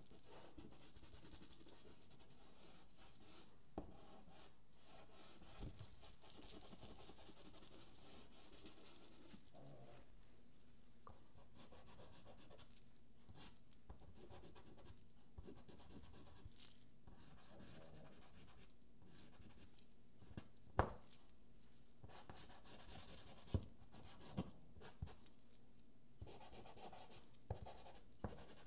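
Faint scratching of a pastel stick stroked across sanded pastel paper, in on-and-off stretches, with a few light sharp taps along the way.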